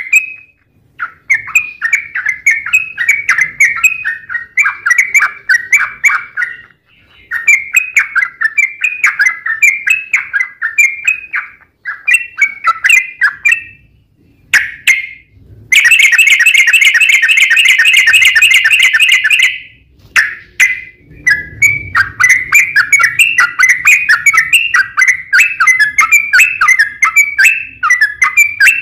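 Yellow-vented bulbul singing loudly up close: bouts of rapid, bubbly chattering notes broken by short pauses, with one long unbroken rapid trill (a 'ropel') lasting about four seconds past the middle.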